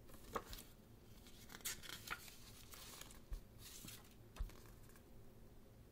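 Faint rustling of a paper CD booklet as it is handled and its pages turned, in several short bursts, with a couple of soft low bumps.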